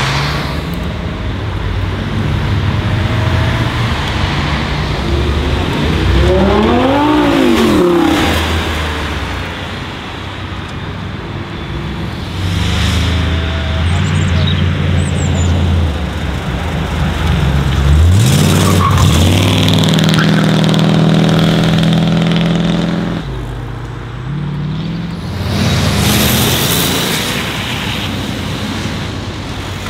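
A run of sports cars driving past one after another, including a Lamborghini Gallardo and Corvette V8s, engines revving up and down as they pull away. There are sharp rises and falls in revs about seven seconds in and again about eighteen seconds in, and the sound changes abruptly several times from one car to the next.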